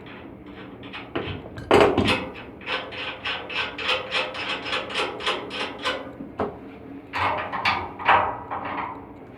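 Rapid hammer strikes, about three a second, with heavier hits about two seconds in and again near the end, during work on an air handling unit's blower belt drive. A faint steady hum runs underneath.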